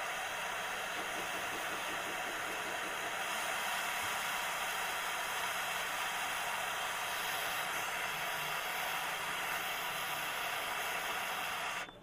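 LPG can torch hissing steadily as its flame heats the copper U-bends of a window AC coil, brazing over refrigerant leaks. The hiss cuts off suddenly near the end.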